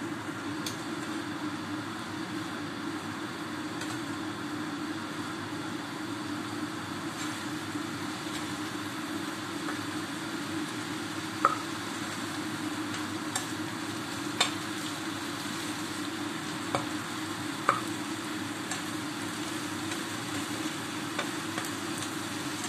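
Vegetables sizzling in a wok over a gas burner, a steady frying hiss, with a metal spatula knocking and scraping against the wok a few times.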